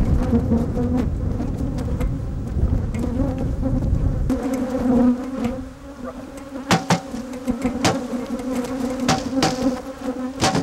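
A mass of honeybees buzzing in a steady, droning hum. A low rumble runs under it for the first four seconds, and from a little past the middle come a series of sharp knocks as bees are shaken off the frames onto the excluder tray.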